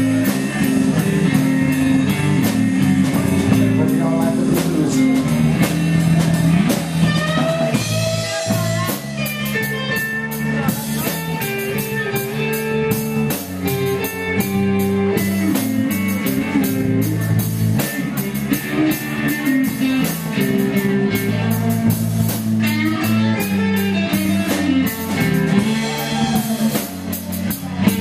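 Rock band playing a blues-rock number with guitar and drum kit.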